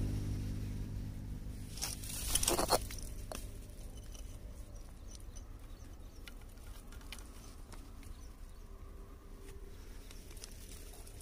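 A burst of rustling and clicking about two seconds in, then faint scattered ticks and taps: handling noise as a small, freshly caught fish is dealt with on a stony bank. A low hum fades away at the start.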